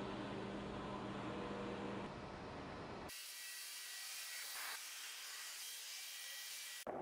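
Background noise from raw camcorder footage: a steady hum for about three seconds, then an abrupt cut to a thin high hiss with a brief whoosh near five seconds in, and another abrupt cut just before the end.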